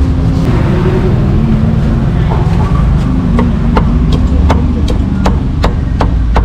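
Steel meat cleaver chopping cooked meat on a wooden chopping block, sharp knocks about two to three times a second from about three seconds in, over a steady low rumble of street traffic.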